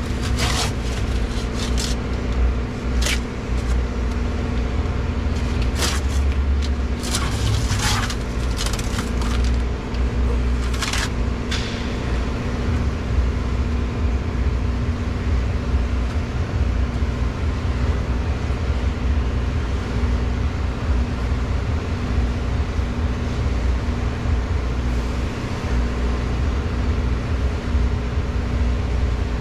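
Steady low machine hum, with several short clicks and scrapes in the first twelve seconds.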